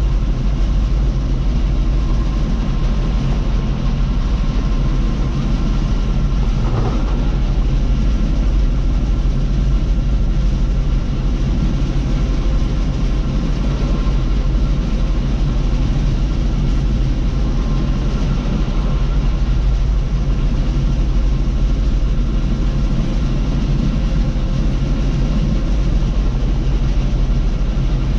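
Bizon ZO-58 Rekord combine harvester running steadily while harvesting, a loud, constant, deep engine drone with the hum of its working machinery.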